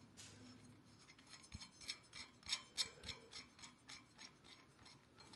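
Small adjustable wrench turning the mounting nut off a battery clock movement's threaded shaft: a run of faint metal clicks and scrapes, about three or four a second.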